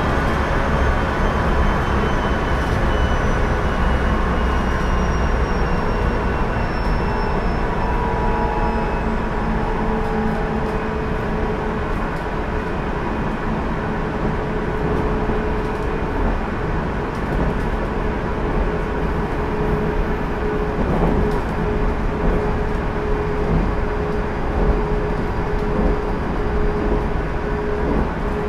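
JR Central 373 series electric train (motor car KuMoHa 373-13) running, heard from inside the car: a steady rumble of wheels on rail. In the first half a thin high whine slides slowly down in pitch.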